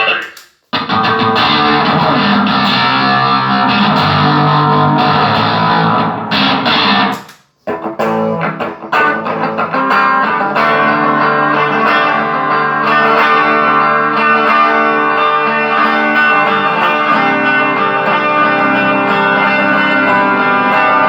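Electric guitar played through a Line 6 POD HD500 multi-effects unit into a Pignose G40V tube amp, as a sound test of the repaired unit. The effected playing is sustained and stops briefly just after the start and again about seven seconds in.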